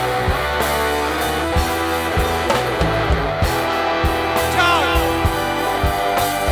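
Rock band playing live: electric guitar over a drum kit beat, with one note sliding down in pitch a little past halfway.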